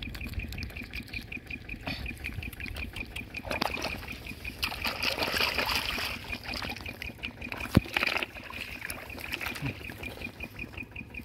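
Hands working in shallow muddy paddy water, with water sloshing and trickling and a sharp knock about two-thirds of the way through. A steady, high, rapidly pulsing buzz runs underneath.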